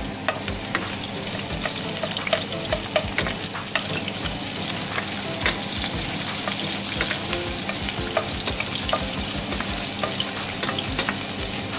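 Chopped red onion sizzling in hot oil in a non-stick frying pan, with a steady hiss and frequent little crackles and pops, as a wooden spatula stirs it.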